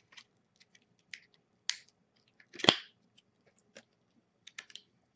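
Light clicks and ticks of processor packaging and small parts being handled by hand, with one sharper snap about two and a half seconds in.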